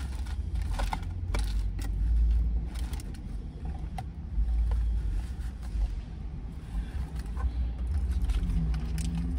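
Low rumble inside a car, with scattered light clicks and plastic rustling from a salad container and utensils being handled.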